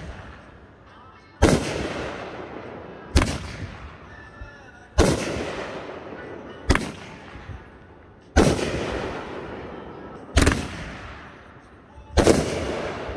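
Aerial fireworks going off: seven sharp bangs, one about every two seconds, each followed by a fading rumble of echo.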